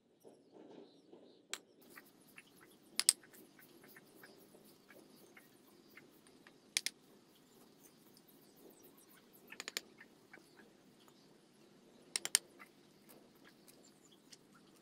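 Sharp knocks of bricklaying: a hammer tapping fired clay bricks down into cement mortar, in short groups of one to three strikes about every three seconds, with faint small ticks between.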